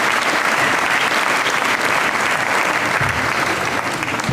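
An audience applauding: a dense, steady clapping that begins to die away near the end.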